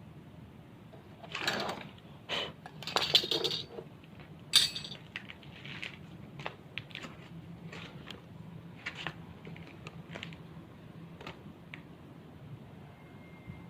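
Small hard objects being handled: a few clattering rattles and one sharp clink in the first five seconds, then scattered light clicks.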